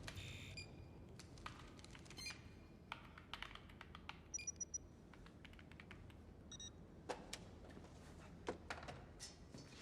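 Faint scattered clicks and taps with a few short high-pitched electronic beeps: near the start, about four and a half seconds in, and again about six and a half seconds in.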